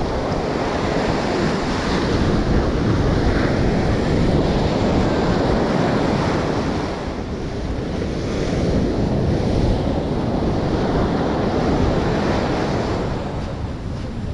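Ocean surf breaking and washing up a sandy beach, with wind buffeting the microphone. It is a dense, steady rush that swells and eases in slow surges, dipping about halfway through and again near the end.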